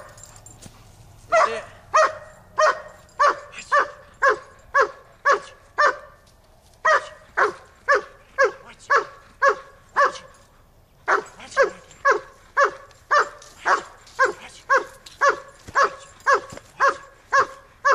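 German Shepherd barking over and over, about two barks a second, in three runs broken by two short pauses.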